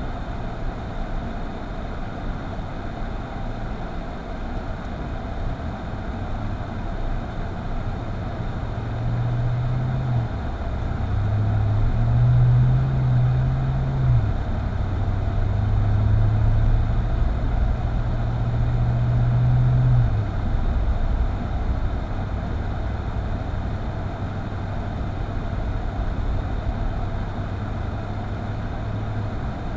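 Car driving on a snowy road: a steady rush of engine and road noise, with a low engine hum that rises and grows louder from about nine seconds in, then drops back about twenty seconds in.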